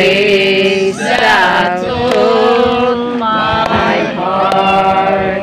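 Singing with long held notes over a steady low hum.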